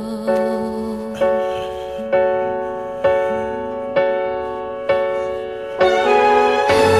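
Music: piano-like keyboard chords struck at a steady pace, about one a second, the music swelling and growing fuller near the end.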